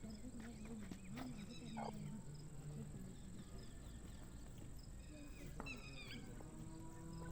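Grey francolins calling: faint clusters of short, sharp repeated notes, one about a second in and another around five to six seconds in, over a steady high insect-like whine.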